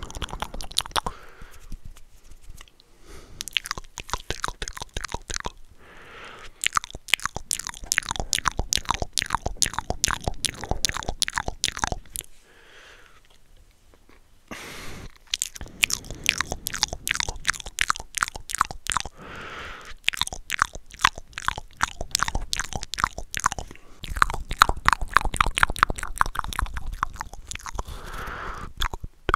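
Wet mouth sounds made with hands cupped around the lips right against the microphone: runs of rapid clicks and smacks, broken by short pauses, the longest a quiet gap near the middle, with soft breaths between some runs.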